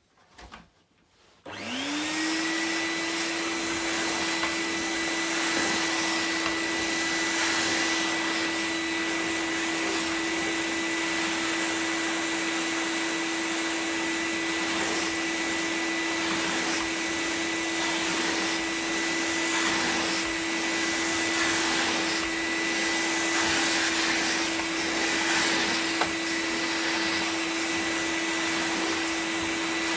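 MAXVAX vacuum cleaner with a Numatic motor switched on about a second and a half in. The motor whines up to speed and then runs steadily and smoothly, with a constant hum and rush of air as it vacuums.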